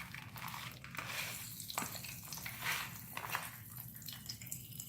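Magic bath crackles popping and crackling faintly in water: scattered, irregular small pops and crackles over a light fizzing hiss.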